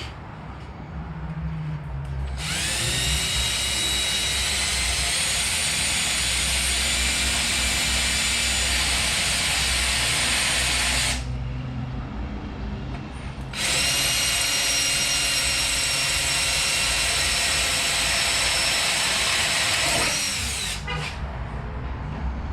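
Power drill boring into metal with a small bit. Its motor whine climbs as it spins up about two seconds in, then runs steadily. It stops for a couple of seconds midway, runs again and winds down near the end.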